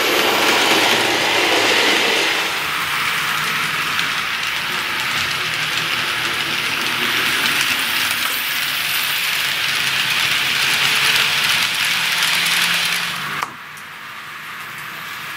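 TT-gauge model steam locomotive and its loaded freight wagons running along the track, a steady rushing of small wheels on rails with a faint motor hum. About 13.5 s in it drops suddenly to a quieter, steadier running noise.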